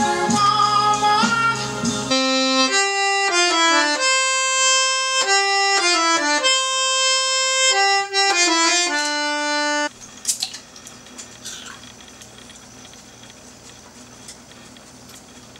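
A song with singing plays briefly, then a piano accordion plays a melody one note at a time for about eight seconds and stops abruptly. After that only faint room tone with a few small clicks and handling sounds.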